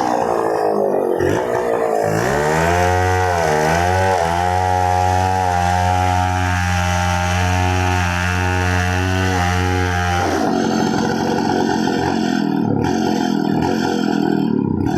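Two-stroke chainsaw running. Its pitch dips twice in the first few seconds and then holds steady. About ten seconds in, the sound turns rougher and noisier.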